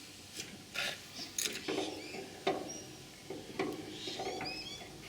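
Scattered light clicks, knocks and rubbing of metal parts being handled on a ride-on mower during repair work.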